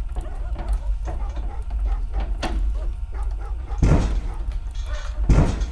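Deep, continuous low rumble, with two heavier surges about four and five seconds in.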